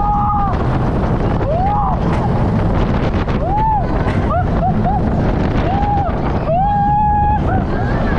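Roller coaster ride heard from the front of an RMC hybrid coaster train: steady wind rush on the microphone over the rumble of the train on the track. Riders yell and whoop over and over in short rising-and-falling cries, with one longer held scream about two-thirds of the way in.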